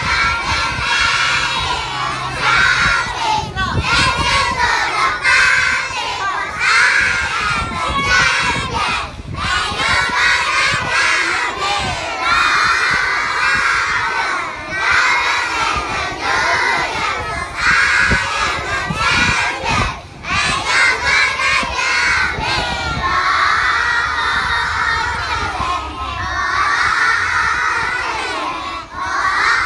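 A large group of young children loudly shouting and singing an action song together, in phrases broken by short pauses.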